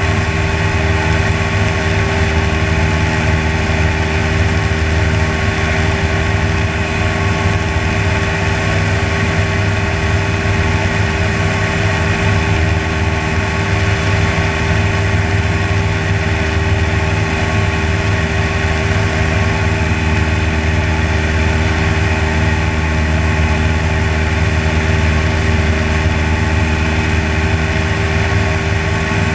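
Propeller aircraft's engine and propeller droning steadily in level cruise flight, an even, unchanging pitch with rushing air noise over it.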